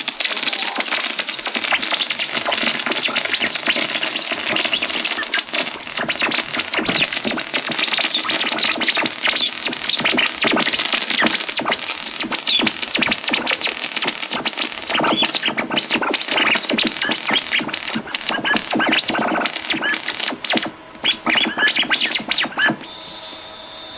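Glitchy electronic music: dense, rapid crackling and scratch-like noise over synthesizer sounds, with a brief dip about 21 seconds in and a thin high tone near the end.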